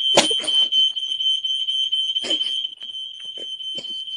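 Smoke alarm sounding a continuous high-pitched tone, set off by holding its test button down. A sharp knock comes about a quarter second in, with another around the middle and softer handling knocks throughout.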